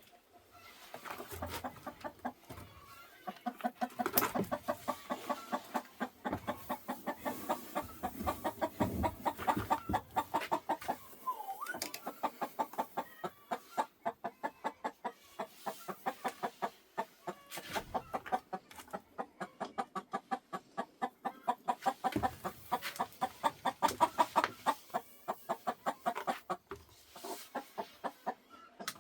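Chicken clucking in rapid, repeated short clucks, several a second, with a few brief pauses, typical of a hen with a natural hatch.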